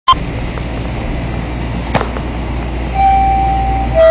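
Toronto subway train standing at a station with a steady low hum, a short knock about two seconds in. About three seconds in the door-closing chime starts: a steady high tone held for about a second, then a lower tone near the end, warning that the doors are about to close.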